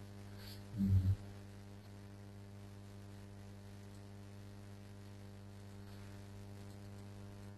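Steady electrical mains hum in the recording's audio chain, with a brief low thump about a second in.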